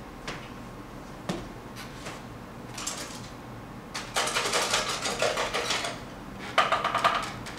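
Small hard objects being handled, starting with a few separate clicks and taps. Then come two bursts of rapid clattering: a longer one about four seconds in and a shorter, louder one near the end.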